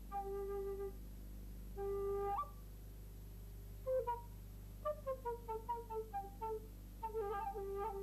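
Solo flute-like wind instrument playing a slow, sparse line. It holds two short notes, slides up at the end of the second, then plays falling runs of short notes and, near the end, a quick wavering trill.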